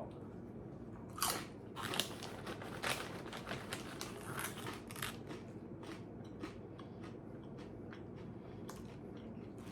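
A person chewing crunchy corn snacks close to the microphone: a run of irregular crunches, loudest in the first three seconds.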